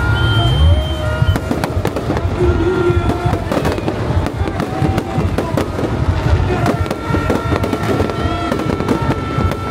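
Aerial fireworks going off in quick succession: many sharp bangs and crackles, with music playing underneath.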